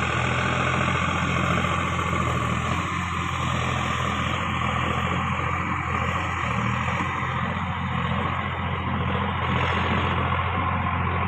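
An engine running steadily at idle, with an even, unchanging hum.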